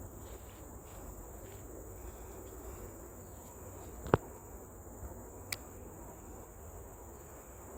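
Steady high-pitched drone of insects, crickets or cicadas, with a low rumble underneath. About four seconds in there is one sharp, loud click, and a fainter click follows about a second and a half later.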